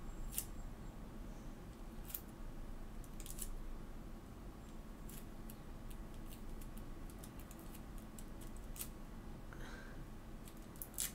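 Irregular small clicks and light handling noises of hands working small craft materials at a table, over a faint steady hum.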